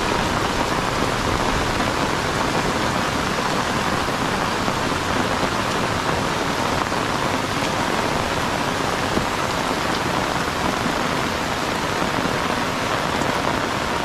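Heavy tropical rain pouring down steadily, a dense, even hiss of rainfall.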